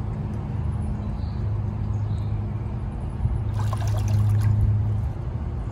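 Dolphin Nautilus robotic pool cleaner working at the pool wall, its pump jet churning and trickling water at the surface over a steady low hum. A louder stretch of sloshing comes about three and a half seconds in and lasts about a second.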